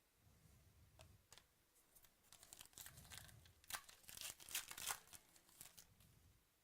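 Trading cards and their packaging being handled: a quiet run of rustling and crinkling with small clicks, loudest around four to five seconds in.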